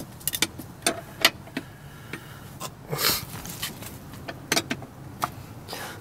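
Metal wrench and cheater bar clinking and clicking on a tight seatbelt-retractor bolt: sharp single clicks at irregular intervals, with a brief scraping swish about halfway through.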